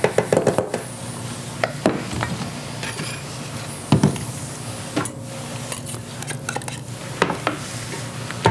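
A spoon scraping and tapping against stainless steel mixing bowls as dry flour mixture is spooned into a stand mixer bowl, with a quick run of scrapes at the start and scattered knocks and clatter of bowls and utensils after it. A sharper knock comes about halfway through and another at the very end.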